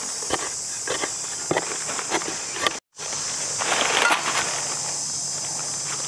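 Steady high chirring of insects, with scattered crackling rustles on the forest floor in the first half. The sound drops out for a moment about three seconds in, followed by a short rustling scrape.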